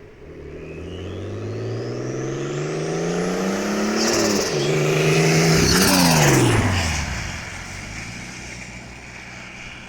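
Turbocharged BMW E46 330i's M54B30 straight-six accelerating, with a thin turbo whistle rising in pitch as the revs climb. About four seconds in the revs dip briefly with a hissy burst. Around six seconds in the throttle closes and the revs fall with a fluttering turbo chatter, after which the engine settles to a low, steady note.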